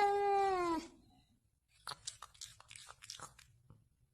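Domestic cat giving one long, drawn-out meow that trails off and stops about a second in. It is followed by a run of soft clicks and crunches.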